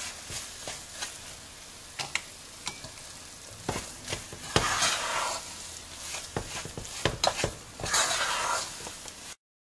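Spoon stirring and scraping a thick, crumbly mix of ghee-roasted whole-wheat flour and jaggery around a non-stick pot, in repeated scraping strokes with the spoon knocking against the pot now and then. The sound cuts off suddenly just before the end.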